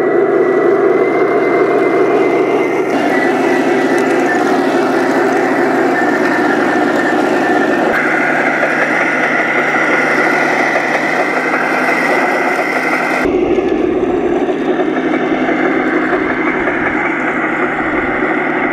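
Radio-controlled scale model tanks running over rough dirt and stones: a loud, steady engine-like drone with the whine of the drive motors and gears. The sound changes abruptly three times as different tanks take over.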